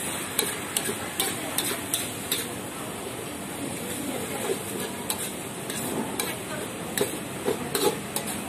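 Metal spatula scraping and knocking against a wok as fried noodles are stir-fried, over a steady frying sizzle. The knocks come irregularly, several to a second at times.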